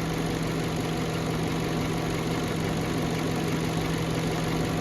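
2011 Peugeot 207 engine idling steadily with a constant hum, its idle now smooth and normal after the rough-idle and misfire fault was repaired.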